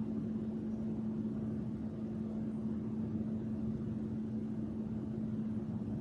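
Steady background hum: one constant low tone over a faint even hiss, with no distinct events.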